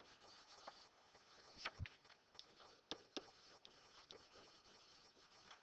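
Faint taps and scratches of a pen writing on an interactive whiteboard, a few soft clicks scattered through near-quiet room tone.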